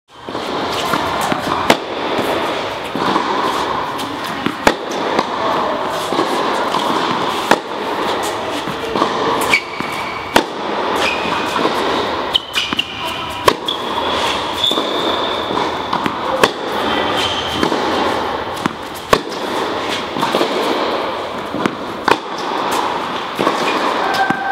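Tennis balls struck by racquets on an indoor court, a sharp echoing pop about every second or so as a rally goes back and forth, over a steady din of the hall. Short high squeaks, typical of tennis shoes on the court surface, come between the shots.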